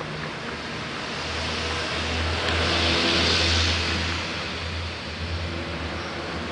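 A motor vehicle passing by, its engine rumble and road noise swelling to a peak about three seconds in and then fading away.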